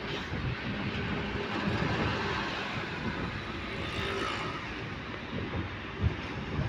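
Steady road noise of a moving car heard from inside the cabin: tyres, engine and rushing air at highway speed, with a brief thump about six seconds in.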